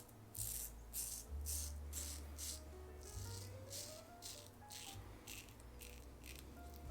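Safety razor scraping through lathered stubble against the grain in short repeated strokes, about two a second: the scratchy, toast-buttering sound that tells the blade is cutting hair.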